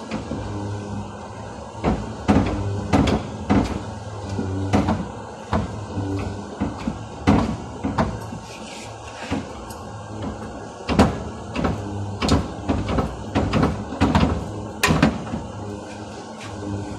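Irregular knocks and clanks of car bodywork repair, roughly one or two a second, over a steady low hum.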